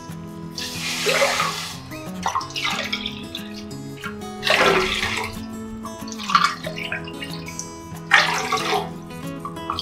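Water poured from a plastic measuring cup onto sugar in a nonstick wok, one cupful after another in several separate pours, to make sugar syrup. Instrumental background music plays underneath.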